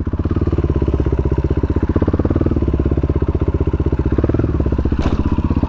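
KTM 500 EXC-F supermoto's single-cylinder four-stroke engine running at low, steady revs, with a fast, even pulse, as the bike is ridden slowly.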